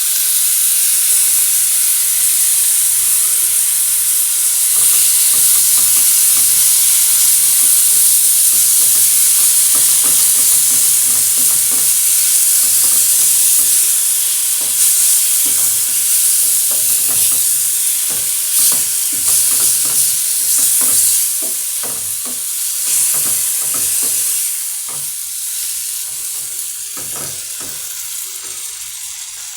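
Grated tomatoes hitting hot oil with fried onions and spices, sizzling loudly the moment they go in, with a spoon stirring and scraping the pan. The sizzle eases off gradually over the second half as the tomato liquid cools the pan.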